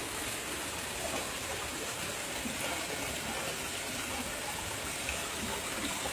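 Steady rush of flowing water, an even hiss with no rhythm or pitch.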